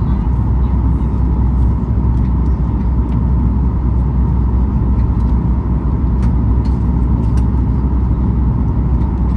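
Steady cabin noise inside a Boeing 737 MAX 8 in flight before landing: the CFM LEAP-1B engines and rushing airflow, with a steady hum running through it.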